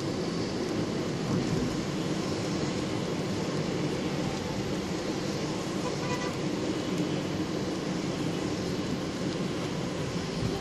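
Steady road noise inside a moving car on a rain-soaked road: engine and tyres on wet asphalt. A short faint horn toot about six seconds in.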